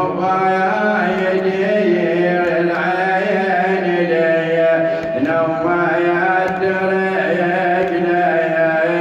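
A man's solo voice chanting an Arabic nawha, a Shia lament, into a microphone without accompaniment. He sings in long, held, wavering notes, phrase after phrase, taking a new phrase about five seconds in.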